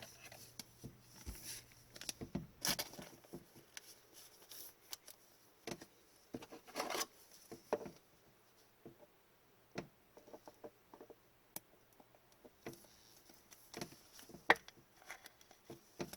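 Hockey trading cards being handled: faint scattered clicks, slides and rustles of card stock as cards are flipped through and shuffled, with a few louder taps.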